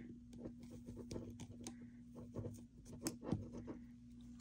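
Faint, irregular scratching and small clicks of yarn being worked over the pegs of a knitting loom by hand.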